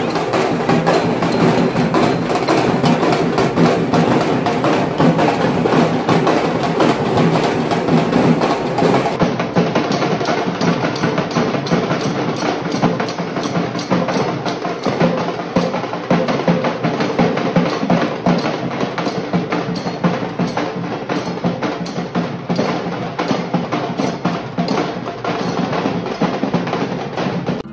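Drums and clattering hand percussion of a street procession band, played loud and dense in a fast, steady beat.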